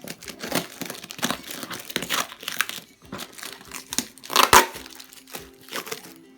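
Packaging being crinkled and torn open by hand while a box of live aquatic plants is unpacked, a string of irregular crackles with the loudest about four and a half seconds in.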